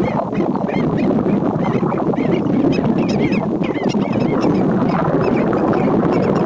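Several black-necked stilts calling over one another: rapid, repeated sharp yipping notes, several a second, from birds that are apparently harassing each other. A loud steady low rumble runs underneath.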